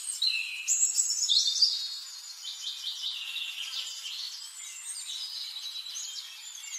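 Birdsong: several birds chirping and trilling in quick, high, overlapping calls, loudest in the first two seconds.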